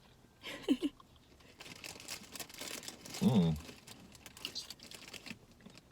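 Snack packaging crinkling as pieces of dried chili mango are handled, with a short voiced "mm" a little past the middle.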